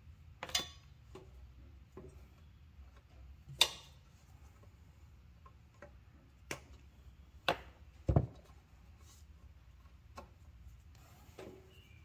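Hand tools and wires being handled: scattered sharp clicks and snaps, with a heavier knock about eight seconds in.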